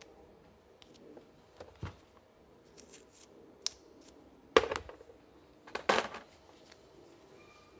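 Handling noise from small parts being worked by hand: a scattering of sharp clicks and knocks, the loudest a clack about halfway through and a cluster a little over a second later.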